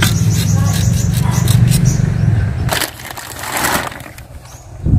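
A steady low machine hum with light metal clicks that stops about three seconds in, followed by a short scrape and a sharp knock near the end.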